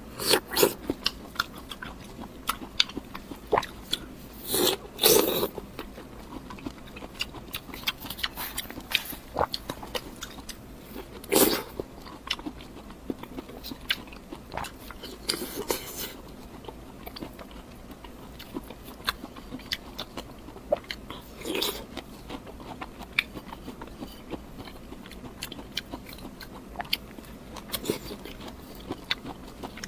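A person biting and chewing crunchy food close to the microphone, with irregular sharp crunches and mouth clicks and a few louder bites spread through.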